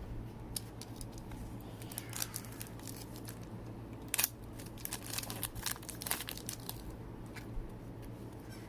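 Plastic trading-card pack wrapper crinkling in irregular crackles as it is torn open. The crackles are loudest about four seconds in and again between five and six seconds in.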